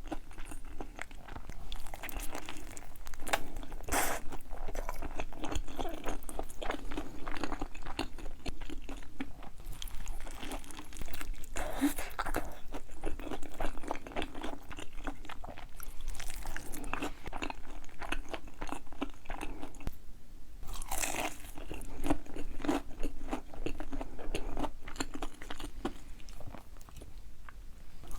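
Close-miked mukbang eating sounds: a person biting into and chewing crunchy food, with a dense run of crisp crunches throughout.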